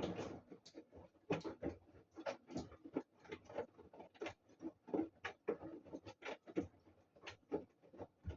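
A string of irregular taps and knocks, about three a second, in a small room.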